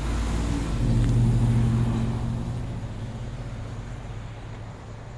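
A motor vehicle's low engine hum, loudest a second or two in and then fading away.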